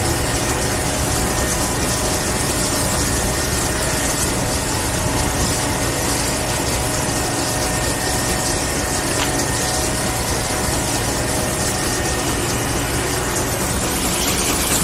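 Engine running steadily, a constant mechanical drone with no change in speed.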